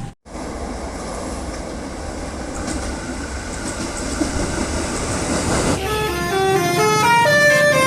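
Steady vehicle noise, gradually growing louder. About six seconds in, a multi-tone 'telolet' bus horn starts playing a quick stepped melody of short notes.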